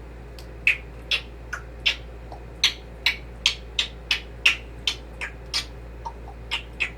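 African grey parrot making a string of short, sharp clicks, two to three a second and unevenly spaced.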